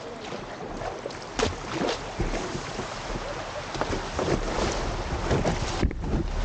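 Water rushing and splashing around a kayak as it is paddled down a chute of fast water, with irregular paddle splashes and wind buffeting the microphone. The sound cuts out for a moment near the end.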